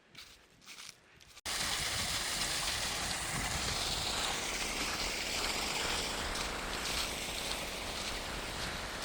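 Faint footsteps on a trail, then about a second and a half in, an abrupt switch to the steady rushing of a mountain stream.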